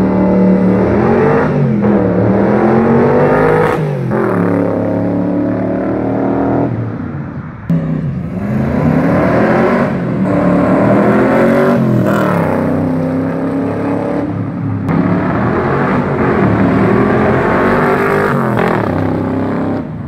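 V8 engines of Cobra roadsters accelerating hard past, one after another. Each engine note climbs through a gear and drops sharply at the shift, over and over.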